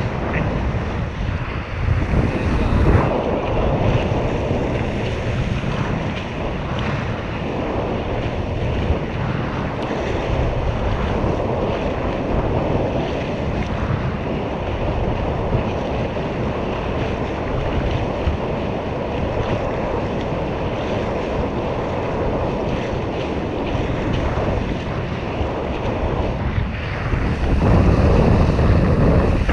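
Water rushing along the hulls of a Tornado catamaran under sail, with wind buffeting the onboard microphone. The steady rush swells louder about two seconds in and again near the end.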